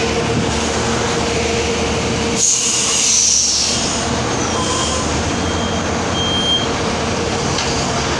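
Cabin noise inside a Bus Rapid Transit bus standing at a station: a steady hum and rumble, broken about two and a half seconds in by a hiss of compressed air that lasts about a second and a half. Two short high beeps follow.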